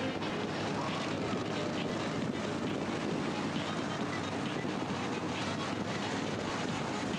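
Motorcycle running steadily at road speed, its engine drone mixed with wind noise on the microphone.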